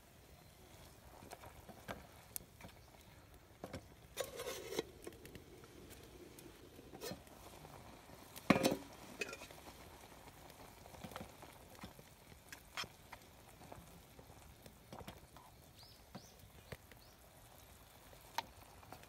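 Wooden chopsticks stirring and lifting ramen noodles in a metal mess tin on a camp stove, with scattered light clicks and knocks against the tin. A short clatter comes about four seconds in and the loudest knock at about eight and a half seconds.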